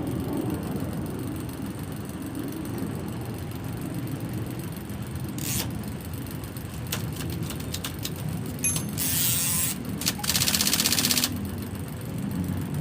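IBM Selectric III electric typewriter running with a steady motor hum, a single click about halfway, then near the end two bursts of mechanical clatter, the second a rapid rattle lasting about a second.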